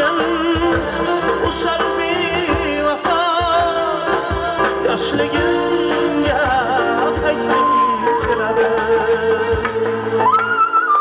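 Live Uzbek folk-pop song: a man sings with vibrato into a microphone over keyboard, a side-blown flute and a steady drum beat. Near the end the singing stops and the flute carries the tune.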